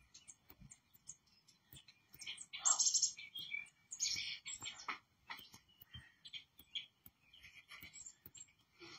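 Small birds chirping and calling in many quick short notes, played from a bird video through a monitor's speakers; the loudest bursts of chirping come about three and four seconds in.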